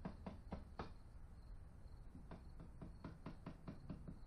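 Faint, quick knocks like light hammer taps on wood. There is a short run of four or five near the start and a longer run of about eight, some five a second, in the second half.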